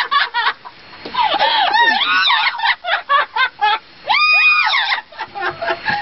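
Amazon parrots mimicking human laughter in quick, bending, laugh-like runs, with one loud held screech about four seconds in.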